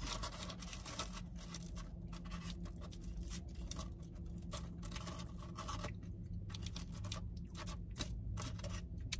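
Paper fast-food wrapping rustling and crinkling as a hand picks through the food on it, in a run of short crackles. A low steady hum sits underneath.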